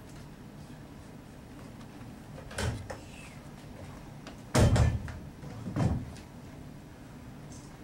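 Three dull knocks and clanks of metal wrestling props, including a metal case, hitting the padded mat: a small one about two and a half seconds in, the loudest about four and a half seconds in, and a third near six seconds.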